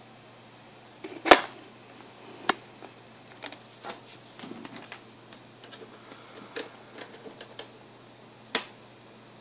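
A series of irregular sharp clicks and knocks: a loud one about a second in, others near 2.5 s and near the end, with many small taps between.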